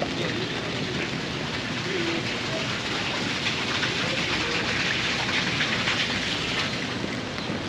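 Steady rain falling on wet pavement and street.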